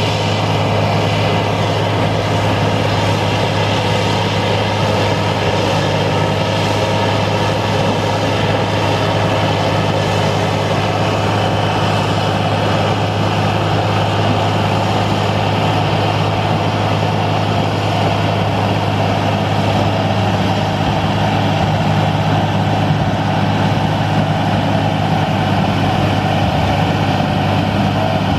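International Harvester TD-40B crawler dozer's diesel engine running steadily under load as the machine pushes a pile of gravel through shallow river water.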